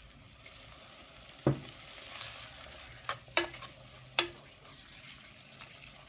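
Wooden spoon stirring green chillies, garlic, ginger and curry leaves as they sauté with a splash of coconut milk in a black pot, over a steady sizzle. The spoon knocks sharply against the pot about a second and a half in, then again around three and four seconds in. The coconut milk is being added a little at a time and sautéed on a low flame.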